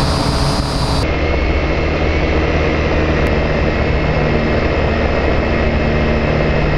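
AR.Drone 2.0 quadcopter's four electric motors and propellers running, a steady whine and buzz over rushing noise, heard up close from the camera carried on the drone. The pitch of the whine shifts about a second in.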